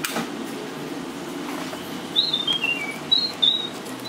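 A bird chirping: two short runs of high chirps, each stepping down in pitch, over a steady low background hum.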